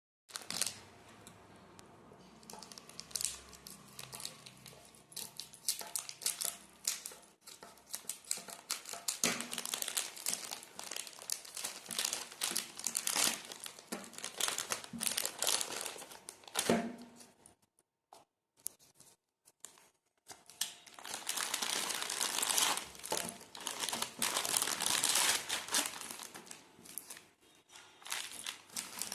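Plastic packaging of an Oreo Pokémon cookie pack crinkling and tearing as it is opened by hand, in dense crackling bursts. It stops for about three seconds a little past the middle, then the crinkling resumes.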